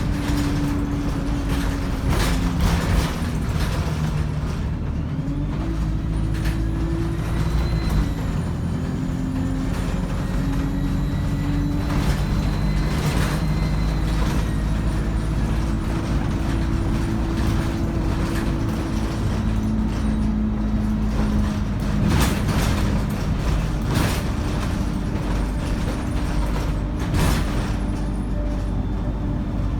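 ADL Enviro 200 single-deck bus with a three-speed Voith automatic gearbox, its diesel engine pulling with a turbo whine. The engine note steps and shifts in pitch, a high whine rises from about six seconds in and drops away around fourteen seconds, and short knocks and rattles come through the whole time.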